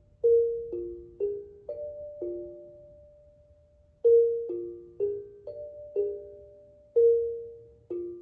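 Steel tongue drum played slowly, single struck notes in a gentle melody, each ringing and fading away, with a pause of about a second and a half partway through before the notes resume.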